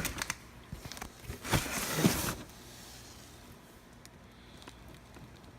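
Cardboard box and packaging being handled and rustled: a few sharp clicks at the start, then a rustling scrape lasting about a second, from about a second and a half in.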